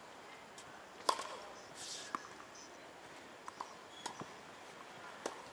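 Scattered sharp knocks of a tennis ball on a hard court, the loudest about a second in and several lighter ones later, over a quiet outdoor background.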